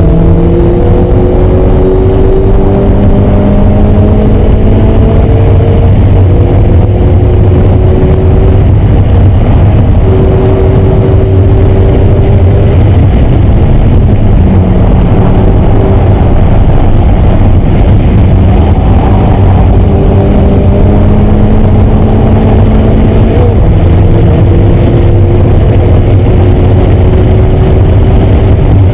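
Loud car engine, heard from inside the cabin, pulling hard at high revs under full throttle. Its pitch climbs steadily, then drops back and climbs again at each upshift, over heavy wind and road noise.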